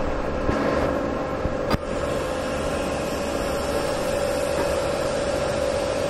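Steady hum of running machinery with a constant mid-pitched tone, broken by a single sharp click about two seconds in.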